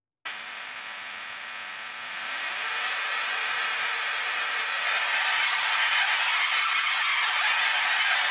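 ZVS-driven Tesla coil, fitted with extra Leyden-jar capacitance, switched on about a quarter second in: its spark discharges make a loud hissing, crackling buzz. The sound grows louder over the first five seconds as the arcs lengthen, then holds steady.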